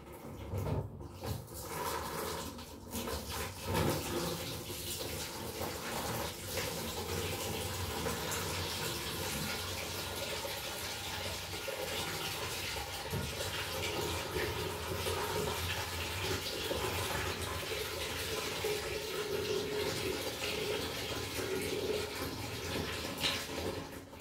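Water running with a steady rushing hiss through a hot-water geyser's pipework, after a few sharp knocks in the first few seconds.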